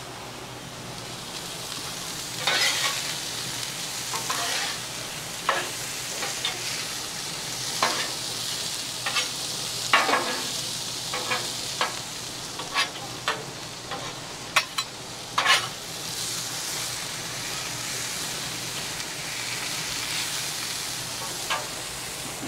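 Corn kernels sizzling in bacon grease on a Blackstone steel flat-top griddle, with a metal spatula scraping and clacking against the steel as the corn is tossed. The spatula strikes come again and again through the first two-thirds, then only the steady sizzle is left.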